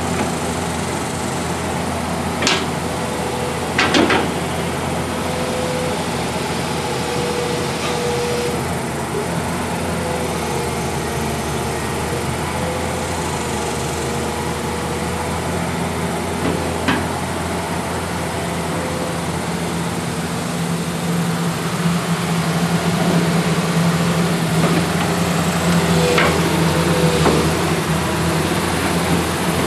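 Komatsu SAA6D102E-2 turbo diesel engine of a Komatsu PC200LC-7 excavator running steadily, with a few sharp metallic knocks scattered through. The engine note grows louder and deeper about two-thirds of the way in.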